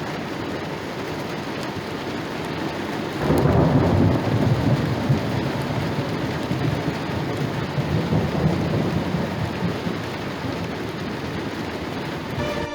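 Steady rain falling. About three seconds in, a loud rumble of thunder breaks in and rolls on for several seconds before dying away.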